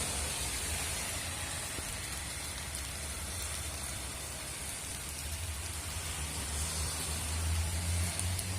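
Heavy rain pouring steadily, with a low rumble that grows louder over the last few seconds.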